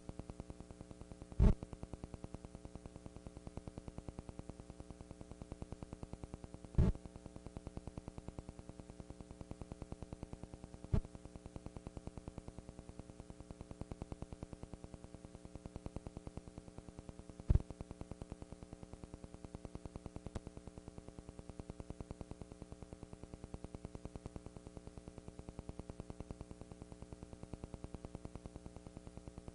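Steady electrical hum and buzz with static hiss, broken by a handful of sharp clicks spaced several seconds apart; no band music.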